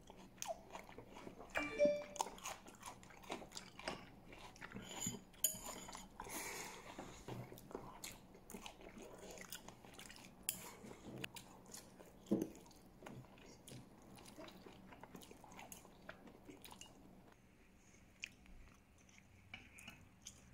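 A person chewing a mouthful of saute spicy chicken close to the microphone, with irregular small clicks and crunches; it gets quieter over the last few seconds.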